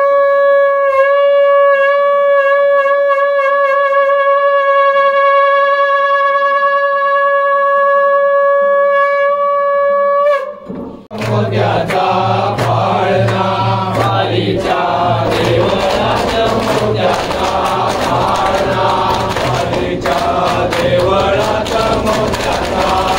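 A conch shell (shankh) blown in one long, steady note, swooping down into it at the start and stopping about ten seconds in. Devotional music follows, with chanting voices over a steady beat.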